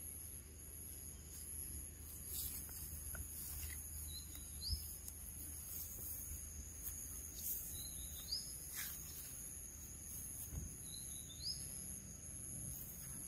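Steady high-pitched drone of insects such as crickets. Over it come three short rising chirps, about three and a half seconds apart, and a few light rustles and taps.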